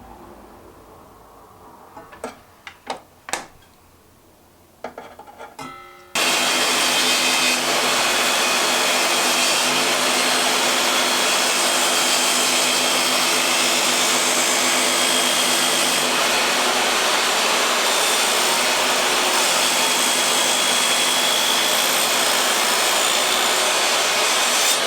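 A few handling knocks and taps, then about six seconds in an electric power tool switches on abruptly and runs steadily at a loud, even pitch.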